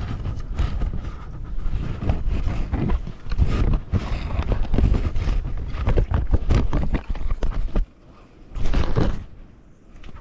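Dry branches and twigs rustling, crackling and scraping close to the microphone as someone pushes and grabs through dense brush, over a heavy rumble of handling and wind noise. It eases off briefly about eight seconds in, then comes back in one loud burst.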